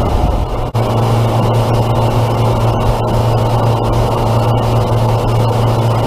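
Loud, steady rushing noise over a low mechanical hum, with a brief dropout less than a second in.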